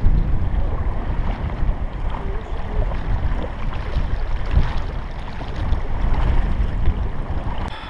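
Steady rushing noise of wind on the microphone mixed with river water around a boat drifting downstream.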